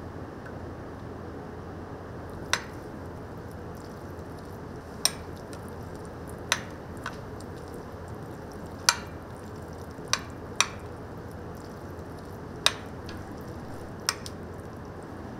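Utensil clinking against kitchenware about nine times at irregular intervals, each a short sharp clink, over a steady background hum.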